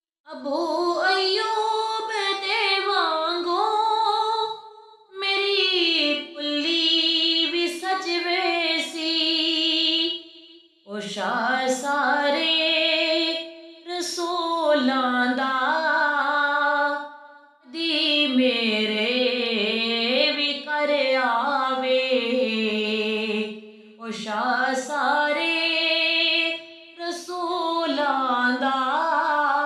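A woman singing a Punjabi naat solo, holding long, melismatic phrases that glide between notes, with short breaths between the lines and no instrumental backing.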